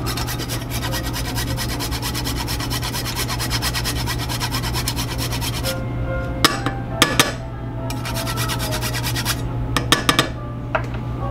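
Whole nutmeg being rubbed rapidly back and forth on a fine rasp grater, a fast, even scraping for about six seconds. It then stops, and a few sharp clicks and knocks follow later on.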